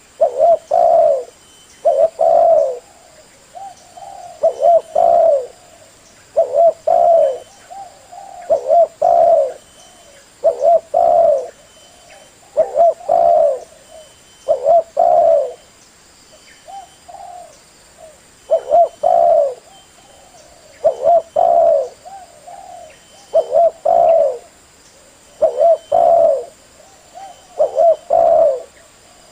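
Male spotted dove cooing: short phrases of low, throaty coos, repeated about every two seconds.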